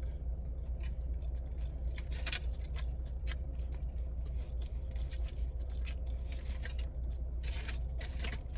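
A person chewing a mouthful of sub sandwich, with scattered crinkly clicks and rustles, over the steady low hum of a car's interior.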